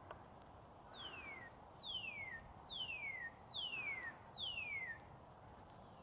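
Male northern cardinal singing: a series of five loud, clear whistles, each sliding down in pitch, repeated evenly about one a second.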